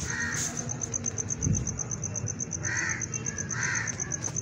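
A crow cawing three times: once at the start, then twice about a second apart in the second half. Under it a cricket chirps steadily in a fast, even high pulse.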